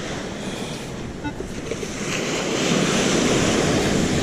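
Ocean surf: a wave breaking and washing up the beach, swelling about two seconds in, with wind buffeting the microphone.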